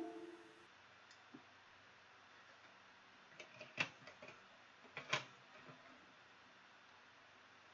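Faint clicks and small knocks from a camera being handled as its battery is changed, in two short clusters about four and five seconds in, over quiet room tone. A ringing electronic chime dies away at the very start.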